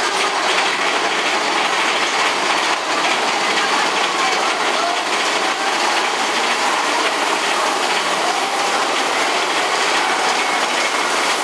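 Big Thunder Mountain Railroad mine-train roller coaster running on its track, a steady mechanical noise of the train heard from aboard a car.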